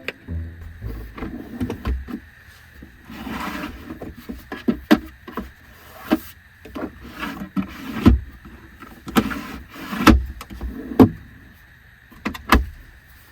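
Irregular knocks and thumps, about a dozen over the stretch, the loudest near the middle and towards the end, with a stretch of rustling or sliding a few seconds in, like gear being handled.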